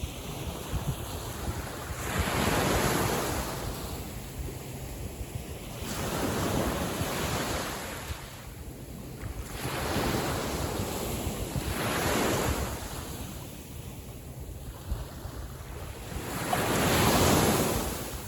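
Gentle sea waves breaking and washing up on the beach, four surges swelling and fading about every four to five seconds, with low wind rumble on the microphone.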